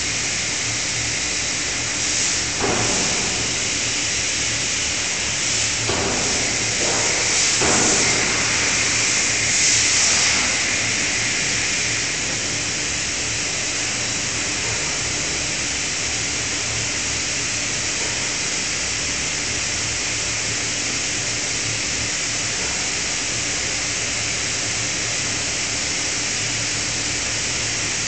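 Steady loud hiss of steam and vapour around a hydraulic closed-die forging hammer, with a low hum beneath and a few brief louder surges in the first ten seconds. No hammer blows are struck.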